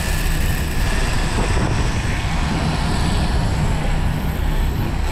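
A sport-fishing boat's engines running steadily under way, with wind and water rushing past.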